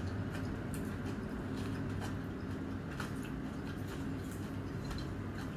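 A person eating by hand: scattered soft clicks of chewing and of fingers picking at food on a plate, over a steady low hum.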